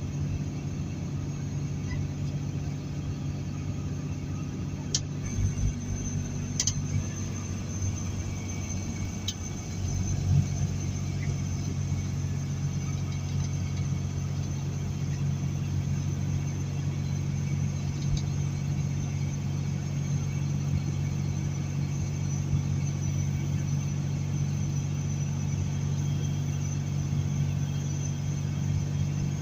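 Heavy semi-truck's diesel engine droning steadily, heard from inside the cab with road noise, under a heavy load. A few sharp clicks come between about five and nine seconds in, and the engine drone steps up louder about ten seconds in and holds there.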